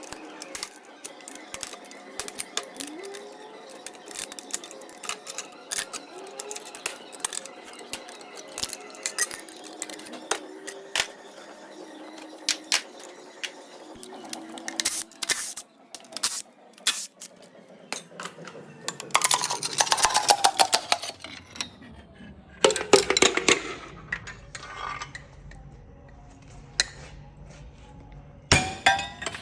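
Metal parts and hand tools clinking and clattering as an engine is dismantled, with scattered sharp clicks and two denser bursts of clatter in the second half, over background music.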